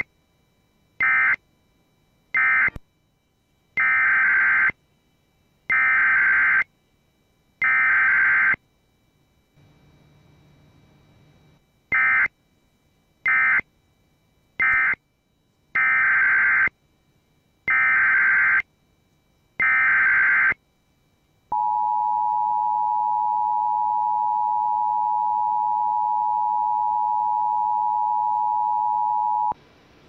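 Emergency Alert System SAME data bursts, each a harsh digital screech. There are two rounds of three short end-of-message bursts followed by three longer header bursts that announce a new alert. About 21 seconds in, the EAS two-tone attention signal starts and holds steady for about 8 seconds.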